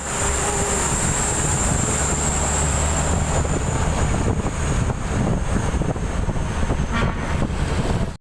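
A heavy truck's engine running with a steady low rumble, heaviest in the first half, and a thin high whine running through it.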